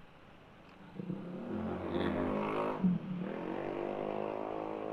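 Motorcycle engine pulling away and accelerating. Its note rises, dips briefly about three seconds in, then climbs again and holds.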